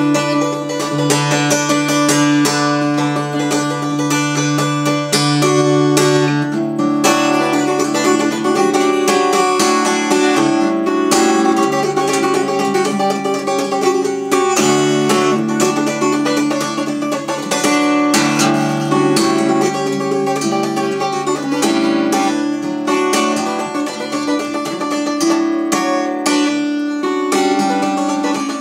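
Acoustic guitar in open C tuning played solo, with rapid strumming and picking over low bass notes that ring on.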